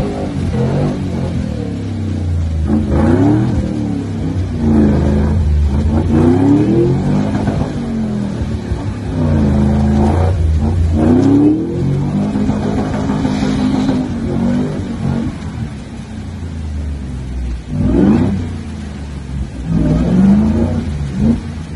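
An off-road 4x4's engine revved hard over and over, the revs climbing and dropping back every two to three seconds, as its spinning wheels churn through mud and water in a river crossing.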